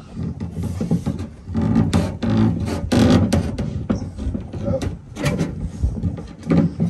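Wooden body tool knocking and pressing against the inside of a pickup door's sheet-metal skin to push out a dent: a run of irregular knocks and taps.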